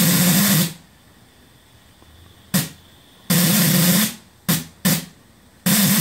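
Steam whistle on a small vertical fire-tube boiler being blown in blasts of hissing steam with a low, wavering tone: a long blast, a brief toot, another long blast, two quick toots, and a long blast starting near the end.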